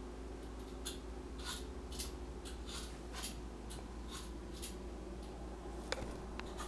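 Faint scratchy rustles, a short one every half second or so, over a steady low hum, with a sharp click near the end: handling noise from a camcorder moved in close over the table.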